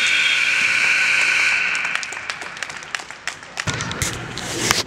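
Gym scoreboard buzzer sounding one long steady blast that stops about a second and a half in, marking the end of a period. Scattered sharp knocks and claps follow, with crowd noise rising near the end.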